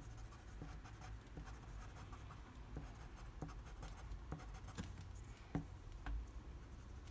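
Prismacolor colored pencil scratching over marker-coloured paper in short, quick strokes, faint and irregular, about one every half second, as highlights are laid in.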